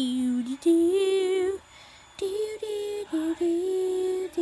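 A young girl singing a slow wordless tune to herself, in long held notes that waver a little, in three or four phrases with short breaks between them. A few light clicks of handling run underneath.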